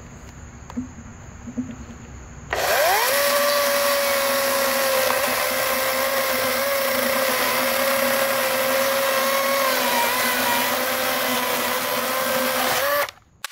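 Greenworks 16-inch 40-volt GMax cordless brushless chainsaw starting about two and a half seconds in with a quickly rising whine, then running steadily while cutting into a log, and cutting off suddenly near the end.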